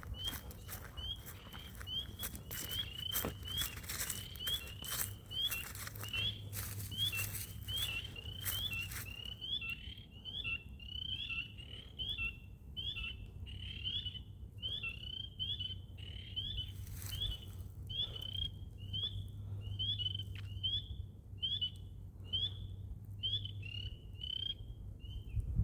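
Frogs calling in a swamp: short high chirps repeating about twice a second without pause. Crackling noise over the first third.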